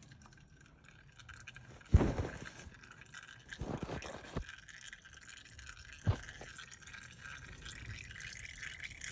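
Engine oil trickling and dripping from the drain hole into a catch pan, the trickle growing a little louder near the end. A few short knocks, the loudest about two seconds in.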